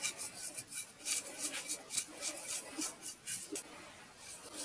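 Small paintbrush dabbing and scrubbing liquid finish into the grooves of a carved wooden plaque: a quick run of short scratchy bristle strokes, about five a second, pausing briefly near the end.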